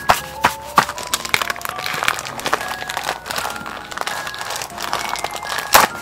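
Plastic packaging crinkling and crackling as hands pull a keyboard out of its frosted plastic cover and clear bag, with a sharp crackle near the end. Soft background music runs underneath.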